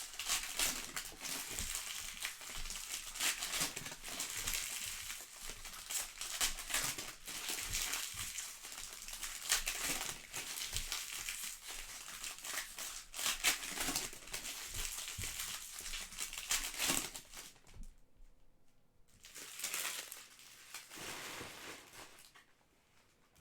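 Plastic trading-card pack wrappers crinkling and crumpling as the packs are torn open and handled, with a steady run of crackles that dies down about three-quarters of the way through, one shorter burst after, then quiet.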